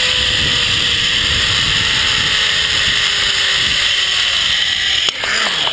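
Zip line trolley pulleys running fast along a steel cable, with wind rushing over the helmet-mounted microphone, and a faint whine that slowly falls in pitch. A knock sounds about five seconds in.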